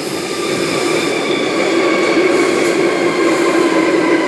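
Sydney Trains Tangara electric multiple unit pulling into the platform: a steady rush of running noise with a whine of several steady tones over it. It grows a little louder in the first second, then holds.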